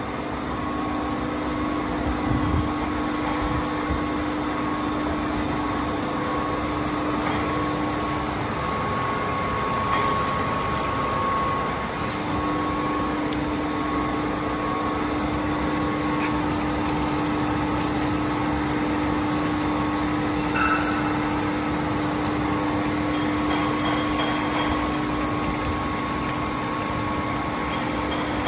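Smith H200 centerless grinder running and grinding a long steel bar under coolant: a steady machine hum with a low tone that drops out for a few seconds and then returns, and a few faint clicks.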